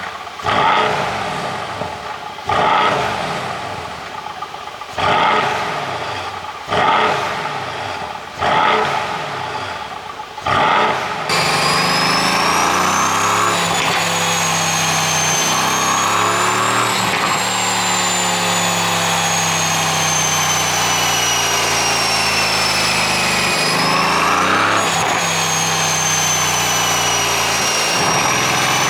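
Mercedes-AMG C63 (W205) twin-turbo V8 revved in six short blips, each falling back with exhaust pops and crackles from a pop-and-crackle tune. From about eleven seconds in, the engine runs steadily with its pitch slowly rising and falling under a high whine.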